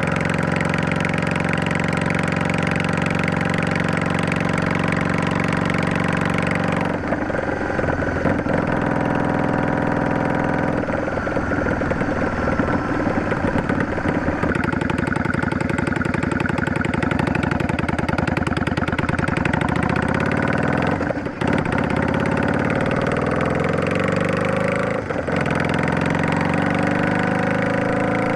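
Yamaha Drag Star 400's fuel-injected V-twin running through a Garage T&F vent muffler with an inner silencer. It holds a steady note, changes note about seven seconds in, dips briefly twice later on, and rises in pitch near the end.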